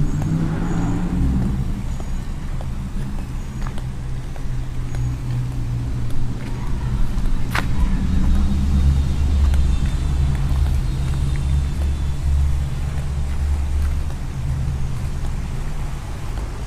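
A van driving: a steady low engine and road rumble that swells for several seconds in the middle, with one sharp click about seven and a half seconds in.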